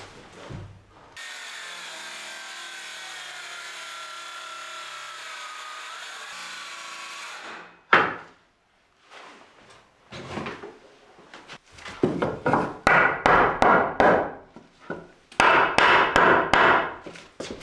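Woodworking on wooden floorboards: a power tool runs with a steady whine for about six seconds, its pitch sinking slightly. It is followed by runs of quick scraping strokes and knocks on wood.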